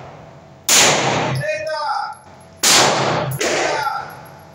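Two pistol shots about two seconds apart, each echoing off the walls of the enclosed indoor range and dying away over about a second.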